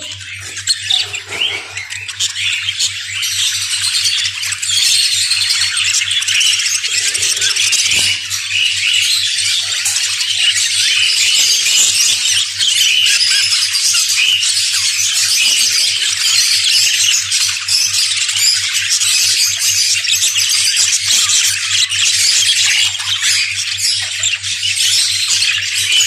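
A flock of budgerigars chattering continuously, a dense mass of overlapping warbles, chirps and squawks that builds over the first few seconds and then holds steady.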